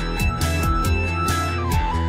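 Electronic background music with a steady beat, bass and a high sustained synth line.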